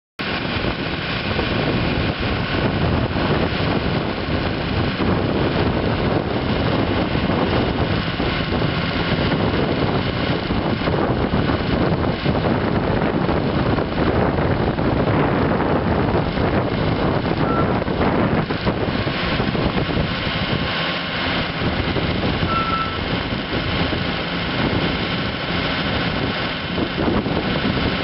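Cummins ISB six-cylinder diesel engine of a Gradall G3WD wheeled hydraulic excavator running steadily while the telescopic boom and bucket are worked.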